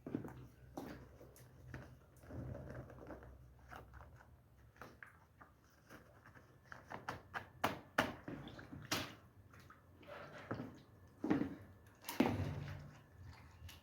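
Irregular knocks, taps and short scrapes of objects being handled, with no steady sound beneath them.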